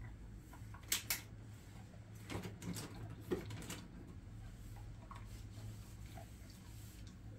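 Jindo mix dog crunching a hard stick-shaped biscuit treat: two sharp cracks about a second in, then a cluster of chewing crunches a second later, and a few faint clicks after.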